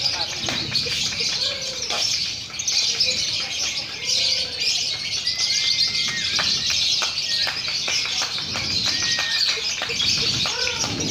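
Many lovebirds chattering at once in a dense, high, unbroken chorus, the sound of a lovebird singing contest, with a few short whistled notes standing out above it.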